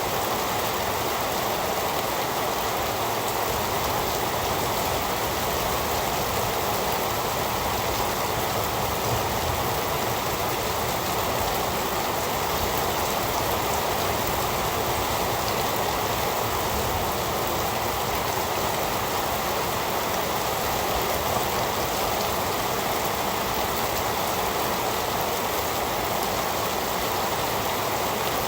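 Heavy rain falling in a steady, even hiss with no breaks or thunder.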